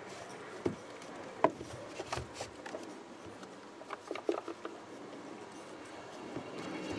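Hands working inside a battery rack: scattered light knocks, taps and rubbing, with two sharper knocks in the first two seconds and a cluster of taps about four seconds in.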